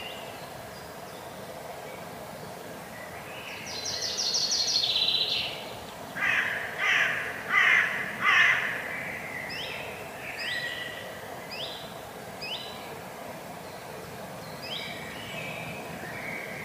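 Common raven giving four loud, harsh calls in quick succession, over spring-forest birdsong: a high rapid trill just before, and a small bird repeating short rising notes about once a second after.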